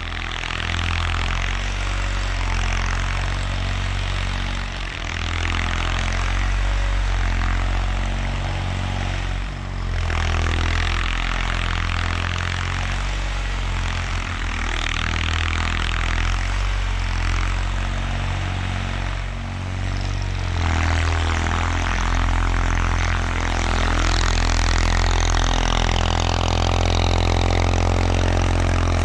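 1979 Bolens HT-23 garden tractor's 23 hp K582 opposed-twin engine running steadily, with a rushing noise over it that changes in level a couple of times.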